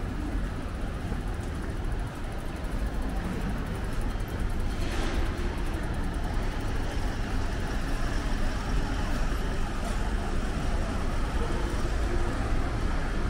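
Busy city street with road traffic running steadily, a low rumble throughout, and a brief hiss about five seconds in.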